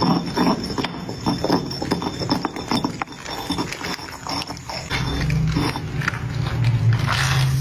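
Slime being squeezed and poked by hand, making quick wet clicks and pops. A low steady hum comes in about five seconds in.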